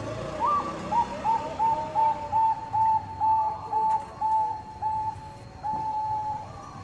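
Zebra dove (Bangkok perkutut) cooing: a quick series of short, clear notes at about two a second, with a higher rising note near the start and a longer drawn-out note near the end.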